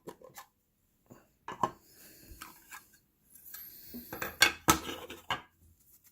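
Hands opening a package of cards: scattered clicks, knocks and rustles of packaging and hard plastic, with two loud sharp clacks a little over four seconds in.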